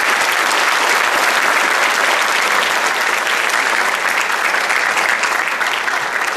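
An audience applauding in welcome: many hands clapping steadily, in a dense, even patter.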